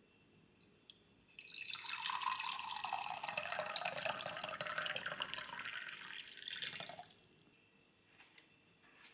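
Water running from a kitchen tap for about five and a half seconds. It starts with a click about a second in and stops suddenly about seven seconds in.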